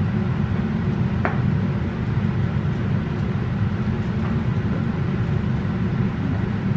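Steady low rumble of background machinery running in a woodworking shop, with one light tap about a second in.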